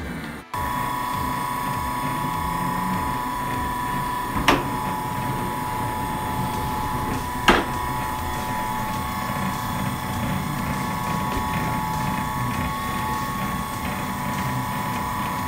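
Electric soba noodle-making machine running with a steady motor whine. Two sharp clicks come about four and a half and seven and a half seconds in.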